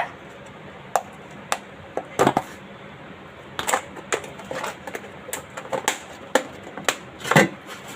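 Plastic food containers and jars being handled on refrigerator shelves: a series of irregular sharp clicks and knocks.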